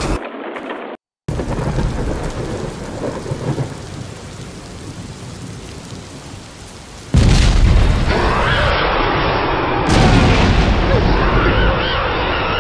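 Sound effects of rain and thunder: steady rain hiss that fades slowly, then a sudden loud thunder rumble about seven seconds in, with wavering tones over it.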